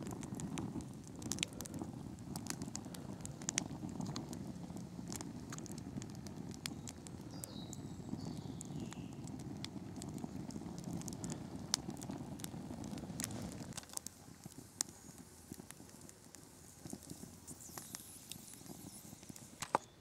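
Small campfire of dry sticks burning, with frequent sharp crackles and pops over a low rumble of the flames. The rumble drops away about 14 seconds in, leaving sparser crackles.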